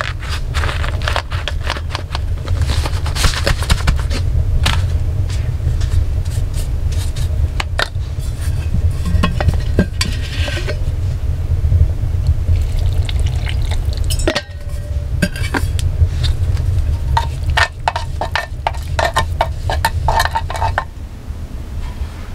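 Hand-tool work: a run of scrapes, clinks and knocks in uneven clusters, over a steady low rumble.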